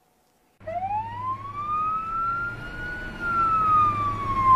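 Ambulance siren wailing: starting about half a second in, one slow rise in pitch over about two seconds, then a slower fall, over a low engine hum.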